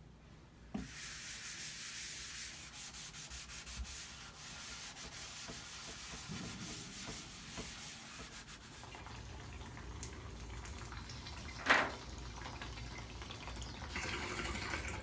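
A cloth rag rubbing and wiping the inside surfaces of a refrigerator, a steady scrubbing hiss. A single sharp knock about three-quarters of the way through.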